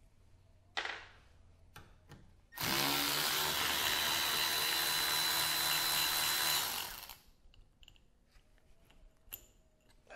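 Cordless electric ratchet with a 5 mm hex bit running for about four seconds, spinning out a bolt from an impact wrench's hammer case, then winding down. Light handling clicks come before and after it.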